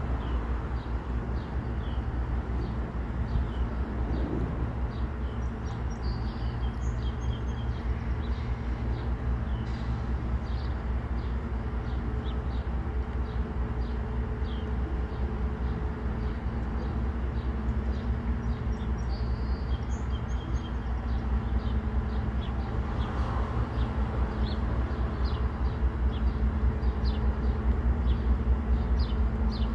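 A freight train's diesel locomotive running in the distance, a low steady drone that grows louder near the end, while small birds chirp over it again and again.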